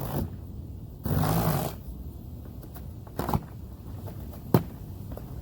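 Storm door packaging being torn open and handled: a burst of rustling about a second in, then a few sharp knocks and clicks.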